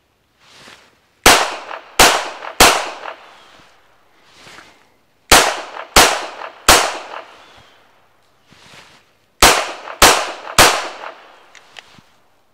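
Canik Rival Dark Side 9mm pistol fired in three failure drills: three strings of three shots, two body shots then a headshot, the shots about two-thirds of a second apart and the strings a few seconds apart, each report ringing out briefly.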